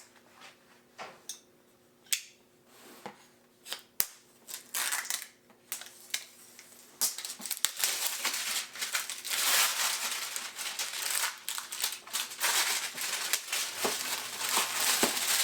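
Product packaging being ripped open by hand: scattered clicks and short rustles at first, then dense crinkling, crackling and tearing from about halfway in.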